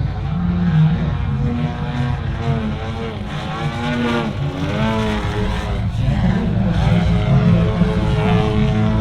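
Engine and propeller of a 102-inch Apex Aerotech Slick 360 aerobatic model plane running continuously, its pitch repeatedly rising and falling with throttle changes through the manoeuvres.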